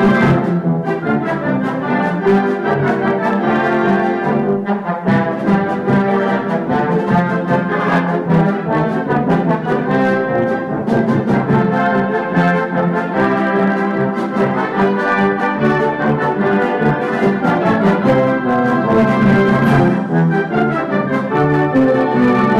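A concert band playing live, brass to the fore, with trombones, trumpets and horns sounding sustained full chords.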